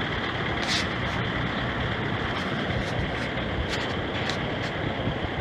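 Gehl 5240 skid-steer loader's engine running steadily, with a few light clicks and knocks over it.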